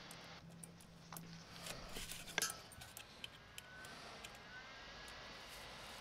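Faint handling noise from hands working the rubber outlet coupling and its stainless steel clamp: scattered small clicks and taps, one sharper click about two and a half seconds in, and a few faint short squeaks.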